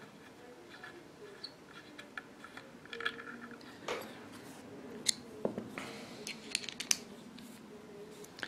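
Small metal parts of a Marlin 39A lever-action rifle being handled during reassembly: scattered light clicks and scrapes, with a few sharper clicks about five and seven seconds in.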